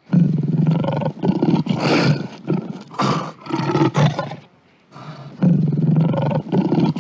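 Lion roaring in a series of deep calls that start suddenly, break off briefly a little past halfway, then resume.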